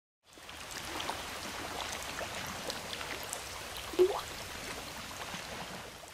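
Water sound effect: a steady patter of dripping, trickling water, with one loud water-drop plink, rising in pitch, about four seconds in. It fades near the end.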